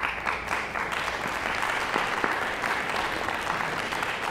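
Audience applauding: the clapping starts abruptly and keeps up steadily.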